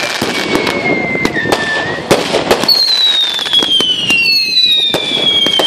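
Fireworks going off close by: whistles sliding down in pitch, with a new whistle starting about halfway through and another a second and a half later, over many sharp pops and cracks.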